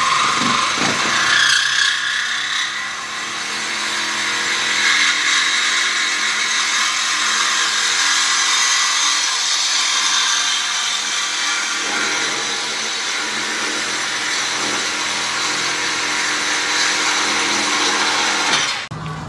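A power tool running steadily with a high, hissy whir, which cuts off suddenly near the end.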